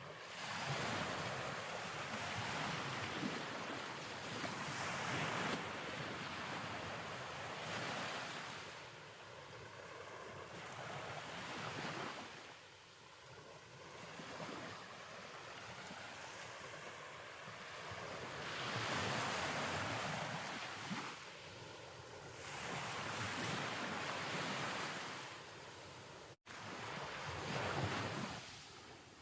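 Surf washing in and out, a hiss of breaking waves that swells and recedes in slow surges every few seconds. It cuts out for an instant about three seconds before the end.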